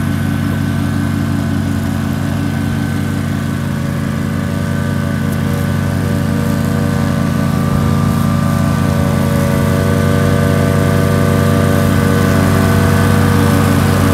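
Engine of a Stella X-Rot remote-controlled tracked slope mower running steadily at constant speed as the machine crawls across the grass. It grows a little louder in the second half as the mower comes closer.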